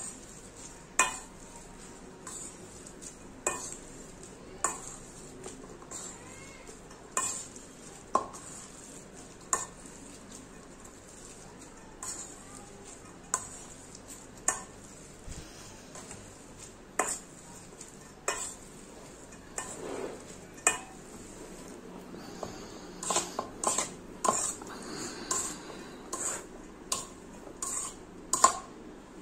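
Leftover cooked rice being mashed in a bowl with a hand masher: repeated knocks of the masher against the bowl, about once a second, coming faster near the end.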